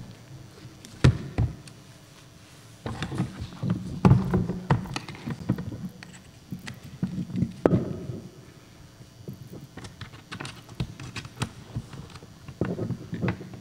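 Irregular knocks, taps and thumps with some rustling, the handling noise of stage equipment being moved. The loudest knocks come about a second in, in a busy cluster around four seconds in, and once near eight seconds in.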